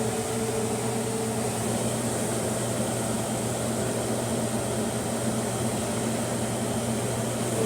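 Electric fan running steadily to draw off solder fumes: an even rushing noise with a low hum under it.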